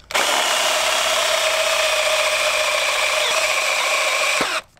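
Cordless drill with a Forstner bit boring into a plywood board, running at a steady speed and cutting wood, then stopping suddenly near the end.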